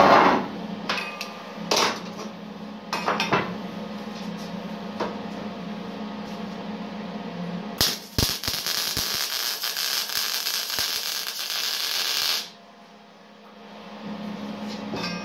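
Eastwood MIG 175 welder laying a bead on a square-tube steel frame: the arc crackles and hisses for about four and a half seconds, starting about eight seconds in, and cuts off suddenly. Before it there is a steady low hum with a few light knocks of metal being handled.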